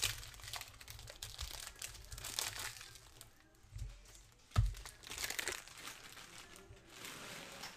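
Plastic trading-card pack wrapper being torn open and crinkling in the hands, in short bursts, with one dull thump about halfway through.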